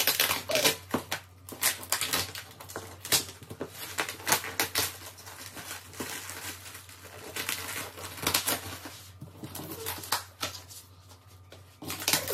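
Scissors snipping and slicing through packing tape and plastic wrap on a cardboard box, with irregular crackles and rustles of the wrap. The cutting is sparser near the end.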